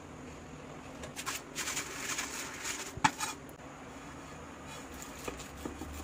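Silicone spatula stirring and scraping through simmering milk in a nonstick pan, then a sharp clack just after three seconds in, followed by a quieter stretch with a faint low hum.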